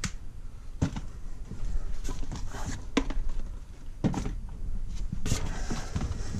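Cardboard boxes being shifted and bumped on a shelf while a box is pulled out: a handful of dull knocks with scuffing and rustling between them.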